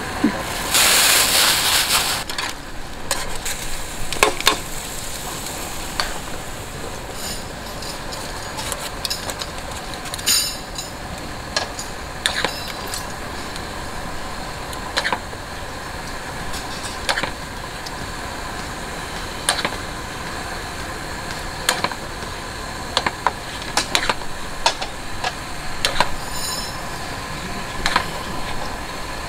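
Portable gas cassette stove burner running steadily under a pot of boiling water. About a second in there is a loud hiss lasting just over a second as a nest of pasta goes into the water. After that come scattered clicks and clinks of chopsticks and a metal colander against the pot.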